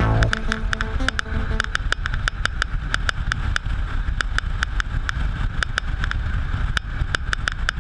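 Honda CB500 parallel-twin motorcycle running at highway speed, its engine mostly buried under heavy wind noise on the microphone, with frequent sharp crackles.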